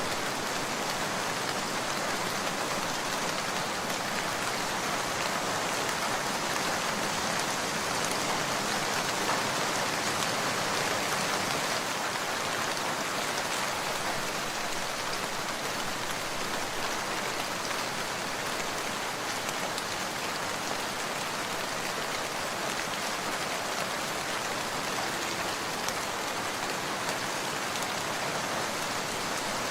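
Steady rain falling, an even wash of patter with many small drop ticks and no thunder claps.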